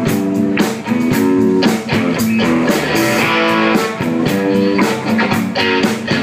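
Live blues band playing an instrumental passage between sung lines: guitar chords over a steady drum beat.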